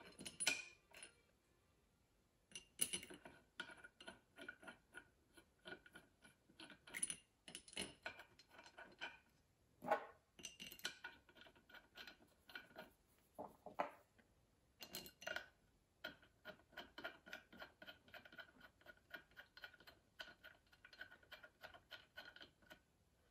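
Faint, irregular metallic clicks and taps with a short ring, from steel bolts and washers being handled and set against the metal parts of the hydraulic motor.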